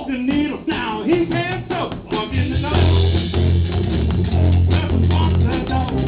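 Live electric guitar and drum kit playing an upbeat blues/rock-and-roll number. Wavering, bending high notes come in the first couple of seconds, then a strong held low note under the groove.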